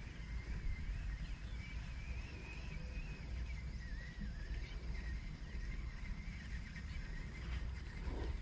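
Wind rumbling on the microphone outdoors, with a faint wavering high-pitched tone running over it.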